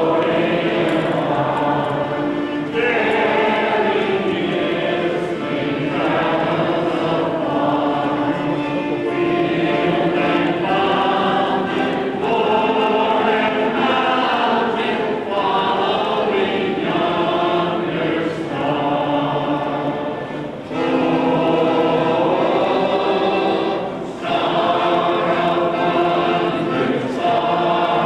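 A choir singing, with long held notes in phrases and short breaks between phrases about twenty and twenty-four seconds in.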